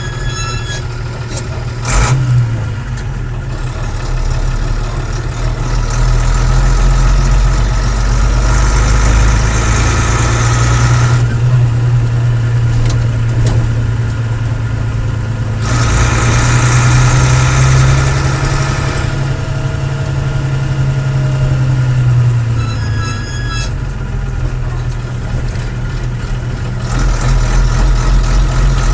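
10-ton diesel lorry engine running, its loudness swelling and easing as it idles and revs, with a sharp clack about two seconds in.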